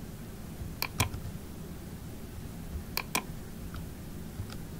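Computer keyboard keys tapped in two quick pairs about two seconds apart, with a few fainter taps near the end.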